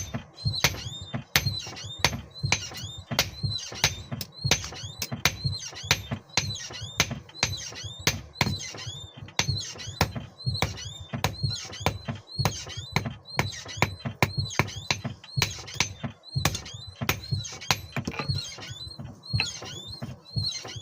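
Rhythmic metalworking strokes on steel, about two to three a second, each a sharp click with a short squeaky scrape.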